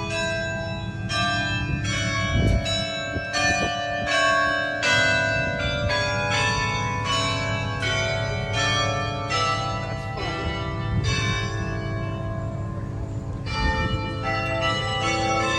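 Tower bells ringing: a steady run of strikes at changing pitches, about two a second, each ringing on into the next, with a short pause about two-thirds of the way through.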